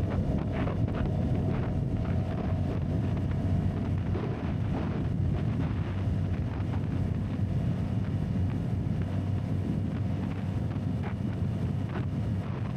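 Heavy wind rushing over an action camera's built-in microphone while a CFMoto 250NK single-cylinder motorcycle rides at road speed in rain, its engine a steady drone underneath. A few faint ticks sound through it.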